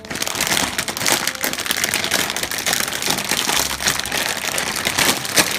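Plastic packets of roasted soybeans crinkling and crackling continuously as hands handle them and try to tear one open.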